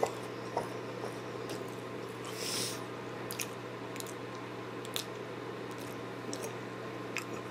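Close-up chewing of a deep-fried Hostess cupcake with a crispy crust: scattered wet mouth clicks and smacks, and a breath about two and a half seconds in, over a steady low hum.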